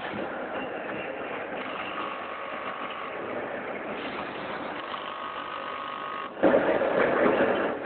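Vertical auger flour packing machine running steadily, with a faint whine that comes and goes. About six and a half seconds in it turns louder and noisier for over a second, as the machine moves into the next stage of its packing cycle.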